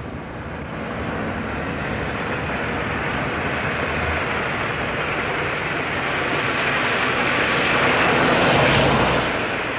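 A car driving fast toward the listener, its engine and tyre noise a steady rush that swells to a peak as it passes near the end, then falls away.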